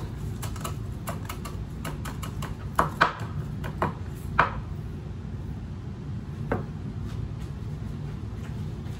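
Chef's knife chopping fresh parsley on a bamboo cutting board: quick taps of the blade on the wood for about four seconds, with a few louder knocks near the end, then it stops. A steady low hum runs underneath.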